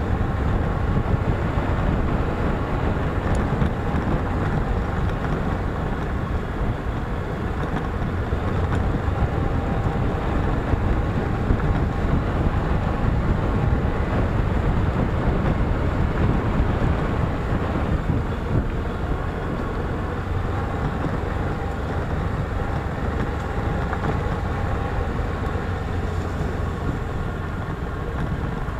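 Small single-cylinder four-stroke motorcycle engine running steadily at low speed on a dirt track, heard from the rider's own bike, with wind noise on the microphone.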